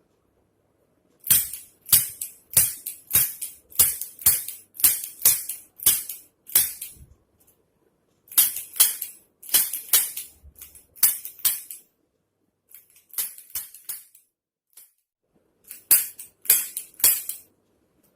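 Spring-loaded Activator chiropractic adjusting instrument firing again and again: sharp snapping clicks about every half second, in four runs with short pauses between.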